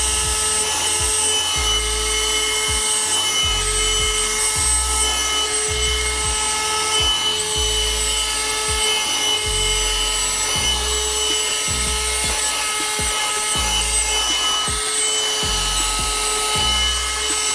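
Handheld car vacuum, plugged into the car's 12-volt socket, running steadily with a high motor whine as its nozzle is worked over carpeted floor mats. Background music with a low, steady beat plays under it.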